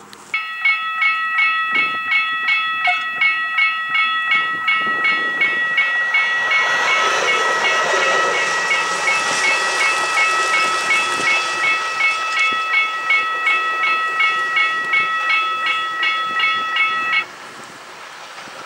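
Level-crossing warning bell ringing in quick, even strokes, about three a second, and stopping abruptly near the end. Under it, a Ferrovie Appulo Lucane M4 narrow-gauge diesel railcar passes, loudest around the middle.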